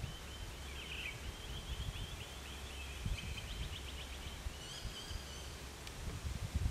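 A bird calling with a repeated fast, rattling trill, quickening into a rapid run of notes about three seconds in, with a few higher chirps near five seconds. A low rumble with a few soft thumps runs beneath.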